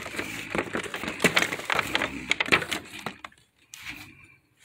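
Hard plastic toys clattering and knocking together as they are rummaged through and a large one is pulled out of a cardboard box. The clatter dies down after about three seconds.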